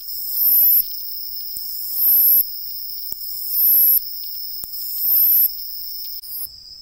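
Umaoi katydid (Hexacentrus) singing its well-known 'sui-tchon' call. Four shrill calls, each swelling over most of a second and cutting off abruptly, come about every second and a half.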